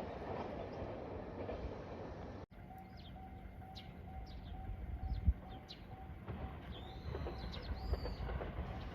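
A train running on the rails fades out. After a cut, birds chirp over a faint level-crossing bell ringing in an even, quick pulse that stops about six seconds in. Low train rumble builds again near the end.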